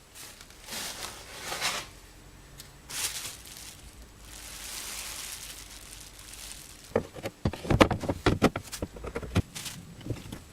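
Parts being handled and fitted by hand: rustling and scraping for the first few seconds, a soft hiss in the middle, then a quick run of sharp knocks and clicks in the second half as pieces of the wiper mechanism are worked into place.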